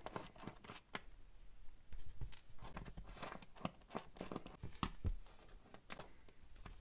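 Small hex driver backing screws out of a 1.0 beadlock wheel: faint, irregular clicks and scrapes of the driver bit in the screw heads and the screws, with fingers handling the wheel.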